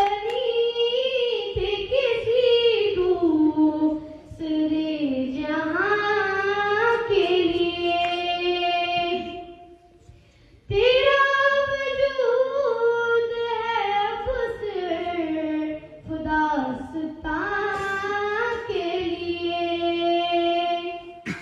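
A girl singing a naat solo and unaccompanied into a handheld microphone, in long melodic phrases with a short break about 4 seconds in and a longer one near the middle.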